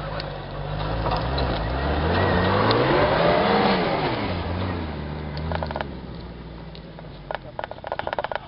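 A 4x4 off-road vehicle's engine revs up, climbing in pitch and loudness to a peak a few seconds in, then falls away. A quick run of sharp clicks and rattles follows near the end.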